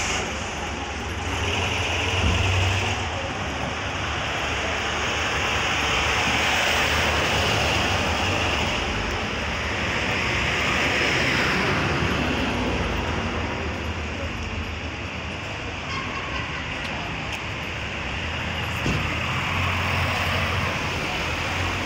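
Street traffic noise: cars passing by, the sound swelling and fading several times over a steady low hum.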